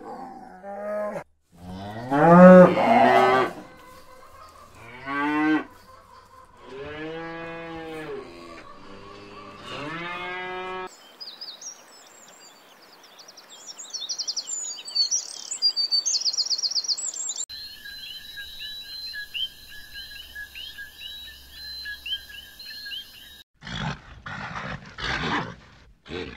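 A series of animal sounds one after another. First comes a run of long, drawn-out calls that rise and fall in pitch. Then a noisy friarbird sings a rapid chattering song, followed by a steady chorus of high, repeated calls, and a few low grunts from bison near the end.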